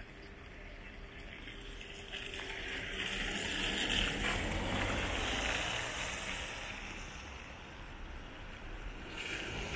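A car passing close by on a wet road, its tyres hissing through the water, loudest about four seconds in. A second car's tyre hiss rises near the end as it approaches.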